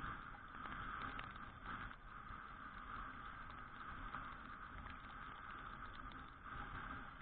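Muffled, steady riding noise of a Suzuki Address V125G scooter on a wet road in rain: wind, tyre and engine noise heard through a sealed all-weather camera mounted on the scooter.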